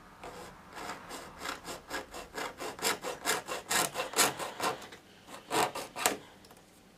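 A small hand saw cutting a strip of styrene plastic held in a vise, in quick back-and-forth strokes of about four to five a second. It pauses briefly about five seconds in, gives two more strokes, then stops as the strip is cut through.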